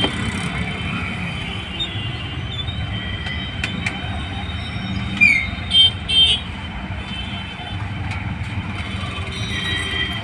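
Steady rumble of road traffic with three short, loud horn toots about five to six seconds in.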